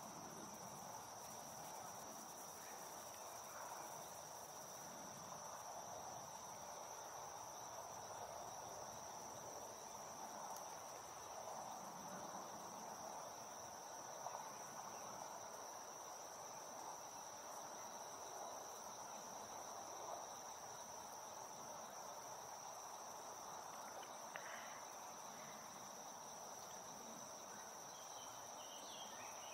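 Faint, steady, high-pitched drone of an insect chorus, cricket-like, over soft outdoor background noise. A few short high chirps come near the end.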